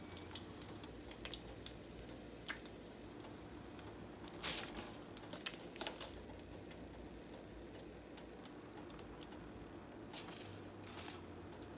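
Faint sizzle of oil in a frying pan as fried taquitos are lifted out with metal tongs, with a few light clicks of the tongs against the pan.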